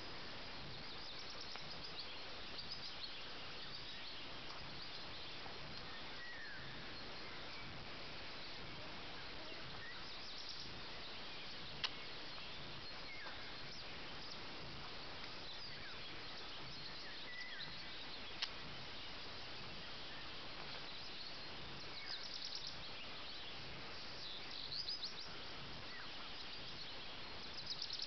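Faint birds chirping and trilling over a steady hiss of outdoor background noise, with two sharp clicks, one a little before halfway through and one about two-thirds of the way through.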